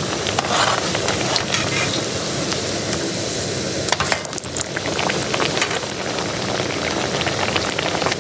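A batter-coated bread slice (bread chop) is deep-frying in hot oil in a kadhai, with a steady sizzle of bubbling oil. About four seconds in, a perforated slotted spoon clicks and scrapes against the pan as it turns the piece.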